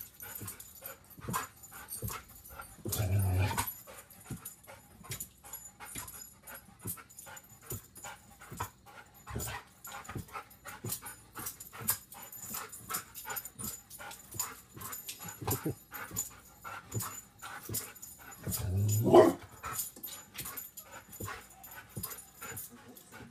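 Excited dog vocalizing twice, a short strained call about three seconds in and a louder one near the end, with a steady run of quick short clicks and breaths in between.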